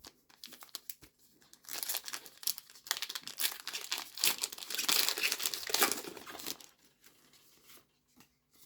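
Foil wrapper of a Pokémon TCG Paldea Evolved booster pack crinkling as it is torn open and pulled off the cards, for about five seconds starting near two seconds in.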